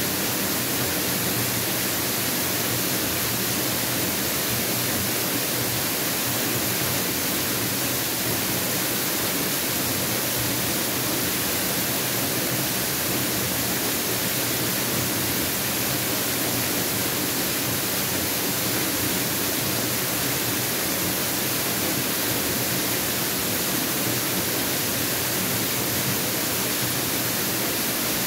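Mountain waterfall rushing: a steady, unbroken hiss of falling water with no change in level.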